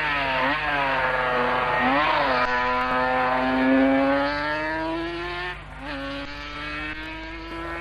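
Racing sidecar outfit's engine at full throttle, its pitch climbing through the gears with quick drops at the gear changes, the longest climb running for about three seconds in the middle.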